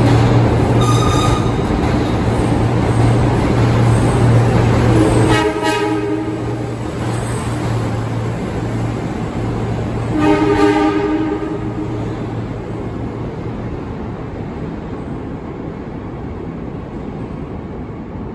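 A New York subway work train running through the station: a steady low engine drone with the rumble of wheels on the rails, and a pitched horn blast about five seconds in and another about ten seconds in. The sound then fades steadily as the train moves off down the tunnel.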